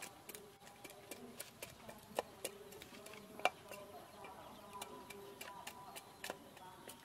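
Kitchen knife tapping and cutting on a wooden cutting board in short, irregular clicks, a few a second, with two louder knocks in the middle.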